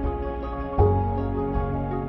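Instrumental background music with held, sustained chords; a new chord with a deep bass note comes in just under a second in.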